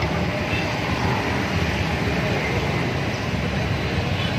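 Steady low rumble of running vehicle engines.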